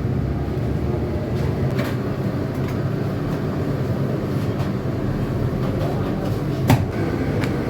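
Bakery machinery running with a steady low hum, with scattered light clicks and one sharp knock near the end.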